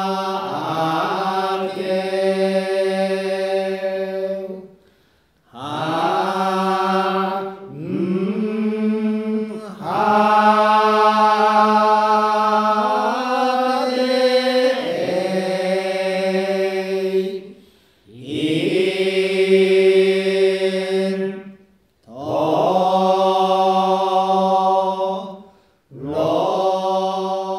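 Tendai Buddhist shōmyō chant: a voice drawing out long vowels on a few held pitches in unaccompanied phrases several seconds long. Each phrase slides up into its note, and there are short breaths between phrases.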